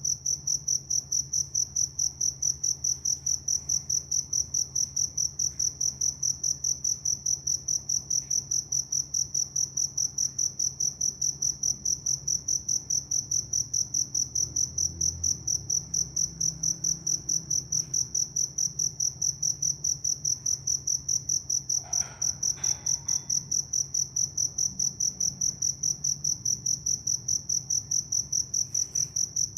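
A cricket chirping in a fast, even train of high-pitched pulses, several a second, without a break.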